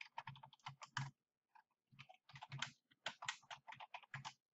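Faint typing on a computer keyboard: quick runs of keystrokes, with a pause of about a second after the first second.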